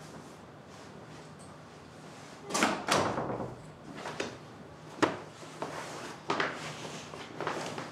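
Quiet room tone, then from about two and a half seconds in an irregular run of short knocks, clicks and rustles from things being handled, such as clothes and a fabric laundry bag, with one sharp click about five seconds in.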